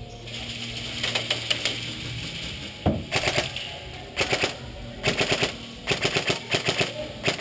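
Airsoft rifles firing rapid full-auto bursts of sharp clicking shots, several bursts in a row that come closer together and longer toward the end.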